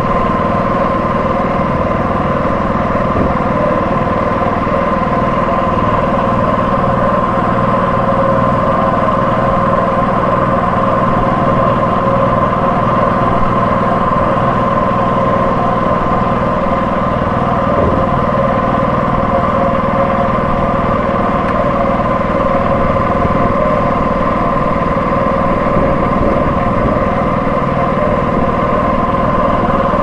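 An engine running steadily at an even speed, a constant hum that holds one pitch throughout.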